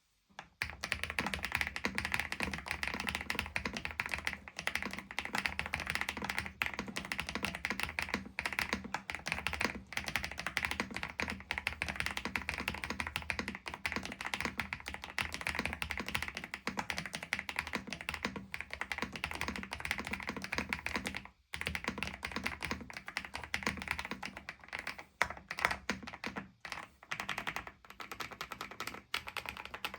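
Fast, continuous typing on an Epomaker TH85 mechanical keyboard: a dense stream of key clicks, with a brief pause about two-thirds of the way through.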